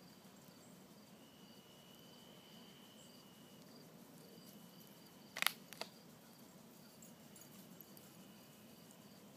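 Faint outdoor insect sound, like crickets at dusk: a chirp repeating about two or three times a second, with a steady high trill that comes and goes. Two sharp clicks close together sound about five and a half seconds in, the loudest thing heard.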